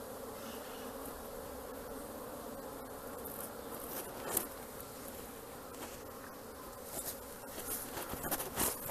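Swarm of Apis honeybees buzzing steadily, a dense mass of bees. A few soft clicks or knocks come through, one about halfway and more near the end.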